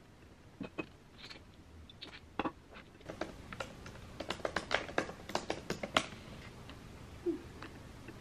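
Typing on a MacBook laptop keyboard: scattered key clicks at first, then a quicker irregular run of keystrokes in the middle, in a quiet room.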